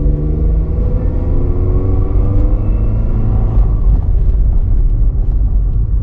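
Toyota RAV4 engine accelerating as the car pulls away, heard from inside the cabin. Its pitch rises for nearly four seconds, then drops as the automatic transmission shifts up. A cylinder-3 misfire code (P0303) is stored for this engine.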